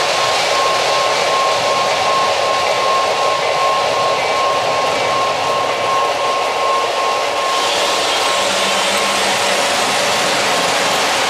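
O-gauge three-rail model trains running: a steady rolling hum of wheels on the track and electric drive, with a faint pulsing tone. About two-thirds of the way through it grows fuller as a second train, chrome F3 diesels with aluminium passenger cars, passes close by.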